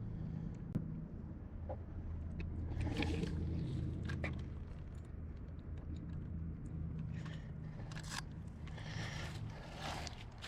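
Scraping, rustling and clicking handling noises as a freshwater drum is hooked onto a fish scale and weighed, over a steady low hum.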